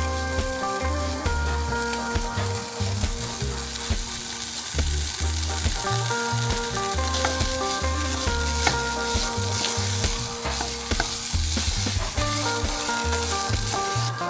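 Food sizzling and crackling in a frying pan, with soft background music underneath.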